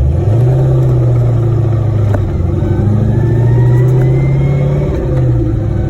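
Tremec T56 six-speed manual gearbox whining under a car's engine drone, the whine climbing in pitch as the car gathers speed, then fading and starting to climb again near the end. This is typical of a worn countershaft or related parts.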